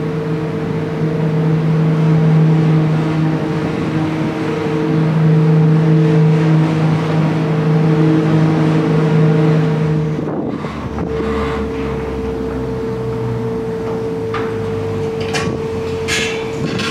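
Aerial ropeway station machinery running with a steady hum. About ten seconds in, the hum changes to a lower rumble, and a few sharp clanks come near the end as a cabin approaches the platform.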